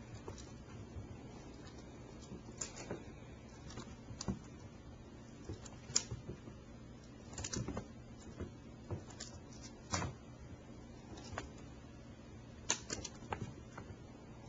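Kittens scampering and pouncing on a carpeted floor: scattered soft thumps and clicks at irregular intervals, over a faint steady low hum.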